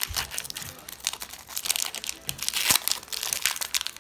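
Foil wrapper of a Pokémon booster pack crinkling and crackling as hands work it open, in a quick irregular run of crackles, the sharpest a little past halfway.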